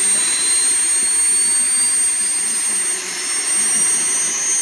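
Miniature jet turbines of a large radio-controlled Boeing airliner model running: a steady rushing hiss with a high whine that slowly rises in pitch.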